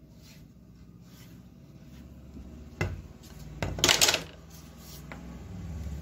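Handling noise on a wooden cutting table: a sharp knock about three seconds in, then a short, louder clatter and scrape a second later, as a wooden tailor's L-square ruler is moved off the cloth and a measuring tape is taken up.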